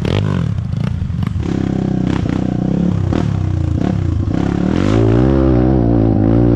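Off-road dirt bike engine revving up and down repeatedly as the bike is ridden over a rough trail, with scattered knocks and rattles in the first few seconds.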